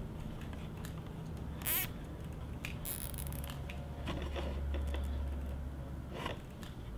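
Hands handling wiring and braided wire loom around snowmobile handlebar controls: a few faint rustles, scratches and small plastic clicks, the longest about three seconds in, over a low steady hum.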